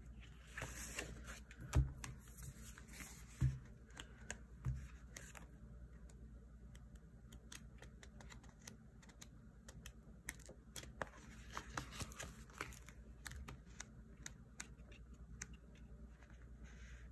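Paper sticker book being handled: pages turning and sticker sheets rustling, with many light clicks and ticks and three soft thumps in the first five seconds.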